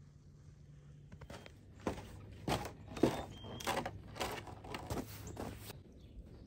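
Winter boots stepping down snow-dusted wooden deck stairs: a run of heavy footsteps, about two a second, starting about two seconds in and stopping near the end.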